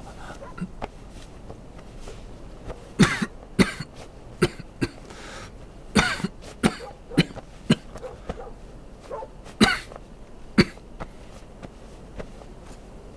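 A person coughing repeatedly: a run of short, sharp coughs between about three and eleven seconds in, with the strongest fits near three, six and nine and a half seconds.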